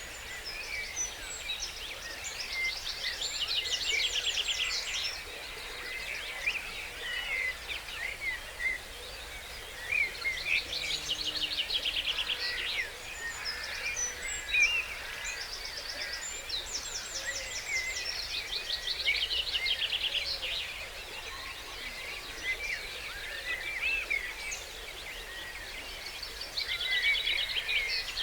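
Dawn chorus of many songbirds singing at once, with one loud song built on fast trills repeating about every seven seconds over the other birds' chirps and whistles.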